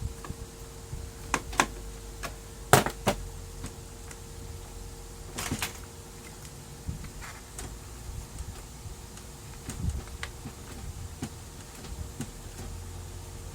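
Scattered clicks and knocks of plastic parts of a Brother laser printer being handled during disassembly, loudest in a sharp pair about three seconds in, over a steady faint hum.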